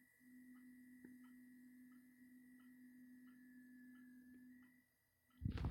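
Near silence with a faint steady electronic tone, then a stomach growl starts suddenly about five seconds in.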